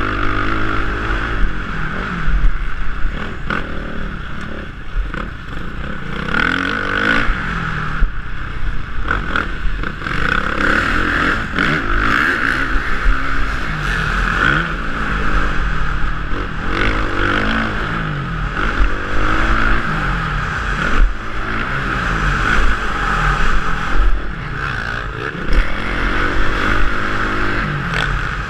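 Motocross dirt bike engine under race riding, heard from the rider's helmet camera. It revs up and drops back over and over as the rider shifts and throttles through the track.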